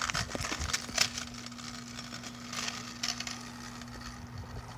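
Gritty rolling noise of the Apollo Phantom Pro kick scooter's big wheels on rough asphalt, with a few scattered clicks.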